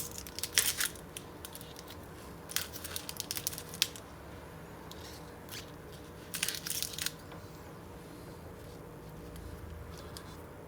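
Polarizing film being peeled by hand off an LG Gram laptop's LCD panel, crackling and tearing in three short spells.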